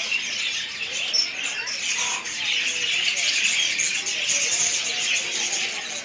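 Many caged lovebirds and other small birds chirping and chattering all at once in a dense, steady din.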